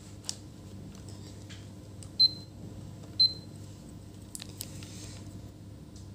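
Two short high-pitched beeps about a second apart from a Sanwa CD800 digital multimeter, over a faint steady hum and a few light clicks.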